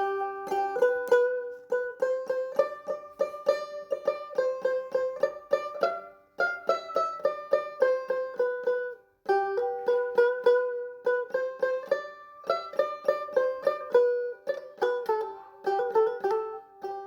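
Background music: a plucked string instrument picking a quick melody of short notes that strike sharply and fade, pausing briefly twice.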